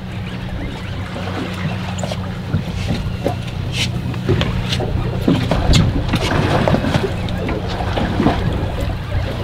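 Boat engine running steadily in a low hum, with scattered knocks and clicks of handling on deck over it, most of them in the middle of the stretch.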